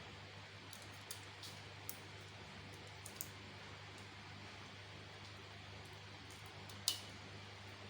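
Small, scattered clicks and taps of a refrigerator inverter control board and its plastic wiring connectors being handled and fitted, with the sharpest click about seven seconds in, over a steady low hum.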